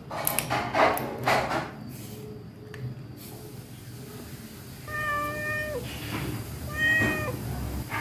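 Domestic cat crunching fish scraps in the first two seconds, then meowing twice, each meow under a second long and dropping in pitch at the end.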